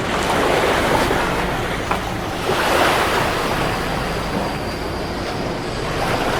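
A steady rushing noise of wind and water, swelling briefly twice, with a low rumble underneath.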